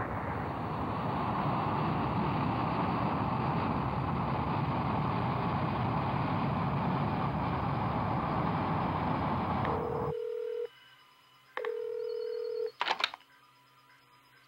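The sustained rumble of a huge explosion, cutting off abruptly about ten seconds in. A telephone then rings twice, each ring a steady tone about a second long, followed by a click as the receiver is picked up.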